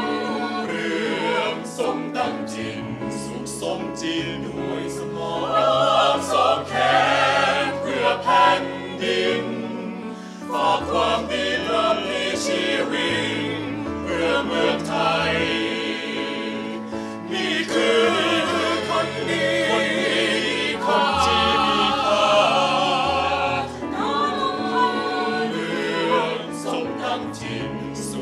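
A mixed choir of men's and women's voices singing unaccompanied in harmony, with low held bass notes under the upper parts and short breaks between phrases about ten and seventeen seconds in.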